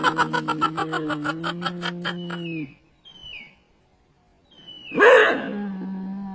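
A dog moaning in two long, steady-pitched howls, the first with a fast pulsing wobble, the second starting loud about five seconds in.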